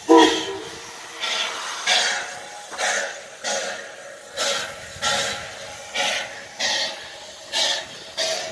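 Nevada Northern steam locomotive No. 81, a Baldwin 2-8-0, giving off repeated hissing chuffs of steam, mostly in pairs about every second and a half, with the loudest burst at the start.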